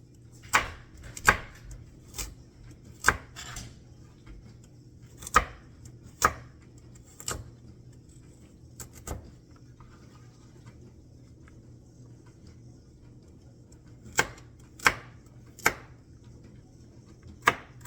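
Knife chopping vegetables on a cutting board: single sharp cuts at an uneven pace, a run of them over the first nine seconds, a pause of about five seconds, then a few more near the end.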